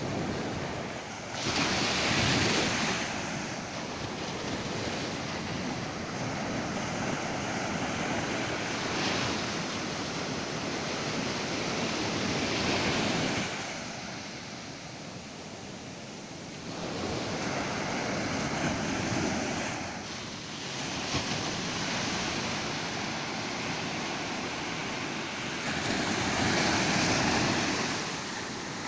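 Ocean surf on a beach: waves breaking and washing in, rising and falling in slow surges every several seconds, with the loudest surges about two seconds in and near the end.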